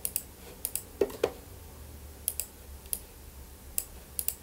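Irregular sharp clicks of a computer being worked, about a dozen in all, some in quick pairs.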